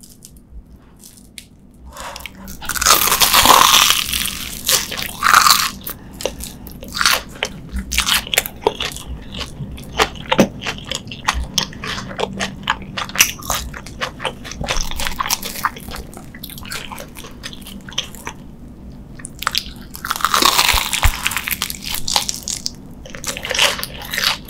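Crunchy bites into the sugar-coated fried batter crust of a Korean corn dog, close-miked: a big crunching bite about three seconds in and another near the end, with chewing and crackling mouth sounds between them.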